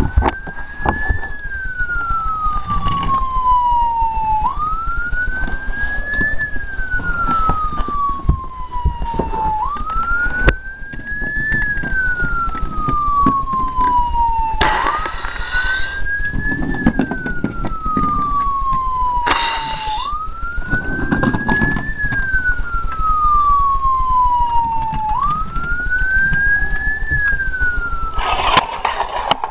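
Toy fire engine's electronic siren wailing, each cycle rising quickly and falling slowly, about every five seconds. Two short bursts of noise break in about halfway through.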